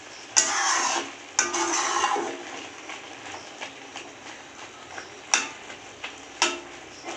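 Metal spatula stirring and scraping a prawn and mushroom stir-fry around a metal kadai. Two long scrapes come in the first two seconds, then a few sharp taps of the spatula on the pan, over a faint steady hiss.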